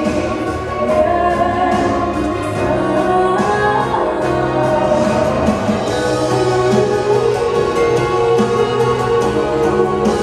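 Music with singing: sung vocals in long held notes over a sustained accompaniment.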